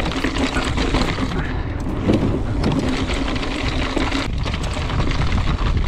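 Mountain bike riding fast down a dirt trail, recorded from a bike- or rider-mounted camera: wind rush on the microphone and tyre rumble over loose dirt, with the bike rattling and clicking over bumps. A steady buzz runs under it and stops about four seconds in.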